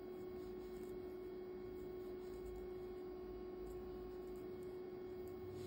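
Faint steady electrical hum holding one constant pitch, with no distinct knitting-needle clicks standing out.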